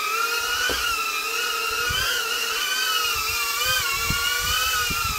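HISINGY StarGazer micro FPV quadcopter hovering, its motors and propellers making a steady high-pitched whine. The pitch wavers slightly as the throttle is held for the hover.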